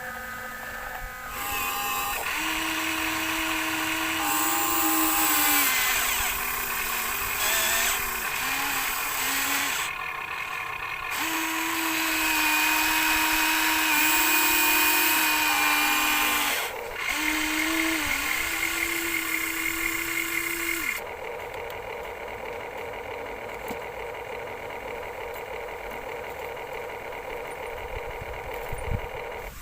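Small electric motors of a toy excavator whining, running in bursts with short pauses and shifts in pitch as it works, then settling into a quieter steady hum near the end.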